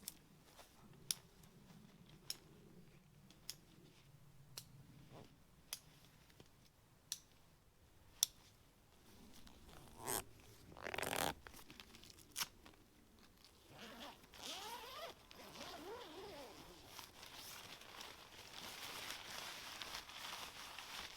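Quiet handling of a nylon tent: a zip is pulled in one long rasp about halfway through, then fabric rustles steadily. Sharp ticks come about once a second in the first part.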